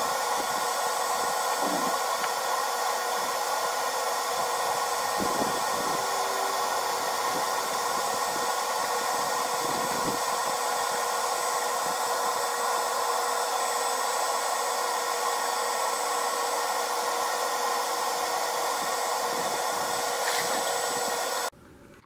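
Electric boat lift motor running steadily as it raises the boat in its slip, an even motor hiss with a faint constant whine. It cuts off suddenly near the end.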